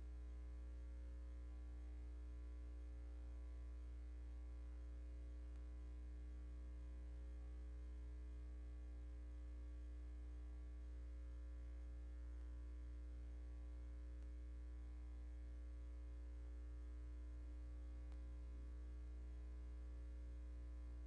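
Steady low electrical mains hum with a stack of overtones, unchanging throughout.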